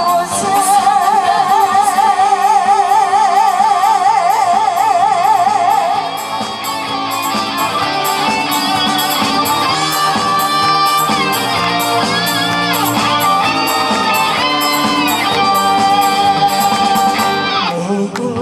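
A woman singing a long held note with wide vibrato over band accompaniment, then an instrumental break from about six seconds in where a lead instrument plays a melody with bending notes.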